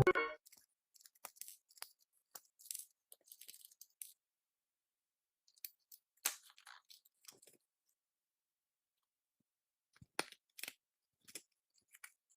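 Scattered small clicks, taps and scrapes of a rusty die-cast model car and small tools being handled, in irregular bursts with a sharper tap about six seconds in and another about ten seconds in.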